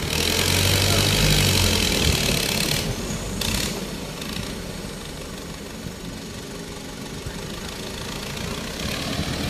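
Diesel farm tractor engine running under load as it pulls a loaded trailer. It is loudest for the first three seconds, then settles to a steadier, quieter run.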